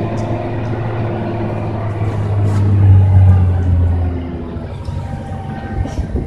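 Hino 500 FM260TI truck's diesel engine heard from inside the cab, running under way. Its note swells to its loudest about three seconds in, then eases off and falls in pitch just after four seconds. A few knocks come near the end.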